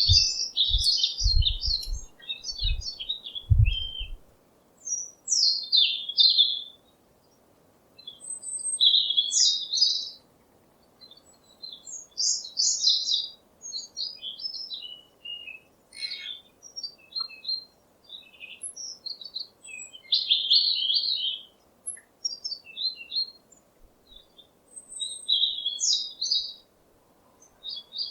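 Birds chirping in short bursts of quick twittering calls, one burst every second or two with brief pauses between. A few low thumps come in the first few seconds.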